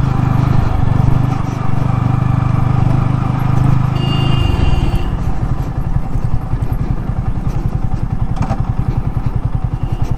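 KTM Duke 250's single-cylinder engine running at a steady speed, then about halfway through the revs fall and it settles to idle, with its separate firing pulses plainly audible. A brief high squeal comes as the revs drop.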